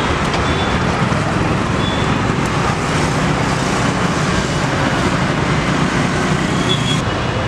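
Steady road traffic noise from passing vehicles, with a low engine rumble underneath.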